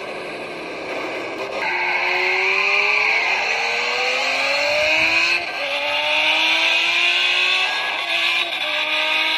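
Race car engine accelerating hard through the gears: after a short rushing hiss, its pitch climbs steadily, drops at an upshift about five seconds in and again about eight seconds in, and climbs again after each shift.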